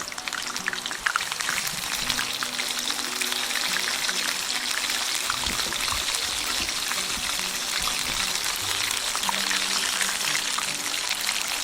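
Battered wild mushrooms deep-frying in hot oil: sharp crackles and pops for the first couple of seconds, then a steady, dense sizzle.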